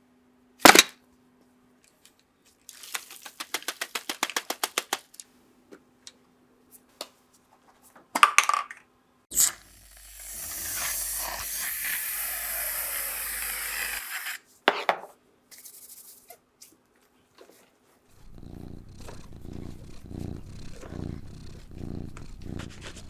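Small hand-work sounds on a diecast model car: a sharp click, then a quick run of clicks like a ratchet. A few knocks follow, then a hiss lasting about four seconds, and near the end steady back-and-forth rubbing strokes like sanding or filing metal.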